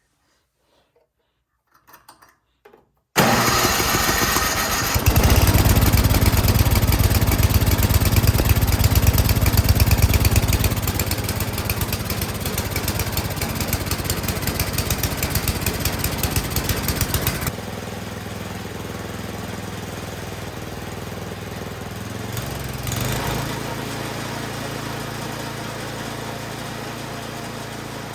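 MTD Yard Machines snowblower's four-stroke engine catching about three seconds in and running fast, after its carburetor's high-speed mixture screw was backed out from fully closed. About seventeen seconds in it drops to a lower, steady running speed.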